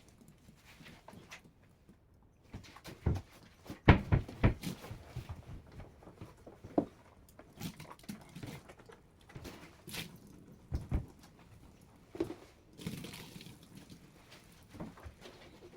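Irregular knocks, taps and thuds, the loudest cluster about four seconds in, with more scattered through the rest.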